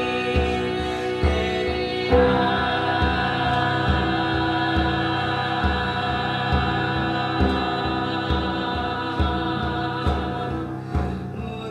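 Women's voices singing a slow, chant-like song in harmony over a steady, slow drum beat, about one beat every second. About two seconds in the music swells fuller and higher, and near the end the upper voices thin out briefly.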